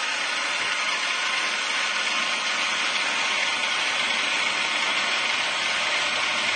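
Milling machine running steadily, its 4 mm carbide stub drill boring into the hardened steel body of an old combination padlock, with an even hissing whine.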